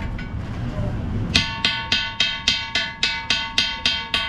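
Rapid, evenly spaced metallic strikes with a bell-like ring, about four a second, starting just over a second in.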